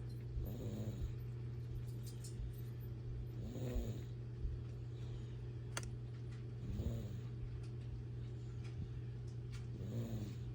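A sleeping pet snoring: four pitched snores about three seconds apart, in time with its breathing, over a steady low hum.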